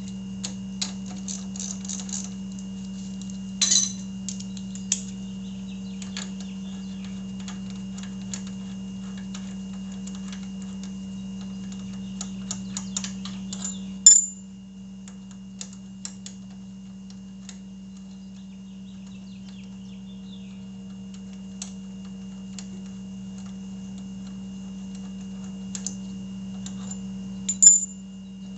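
Scattered small metallic clicks and taps of hand tools working on a motorcycle's front brake caliper, with a few sharper metal clinks that ring briefly, over a steady low hum that drops in level about halfway through.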